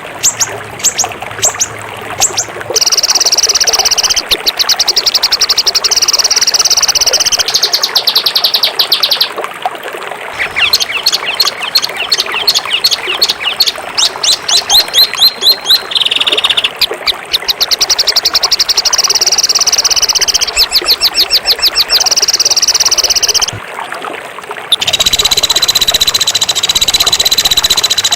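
Caged songbird song used as a tutor recording: long runs of very fast, high, harsh repeated notes and trills, broken by a few short pauses. These rapid bursts are the 'tembakan' that bird keepers train their birds to copy.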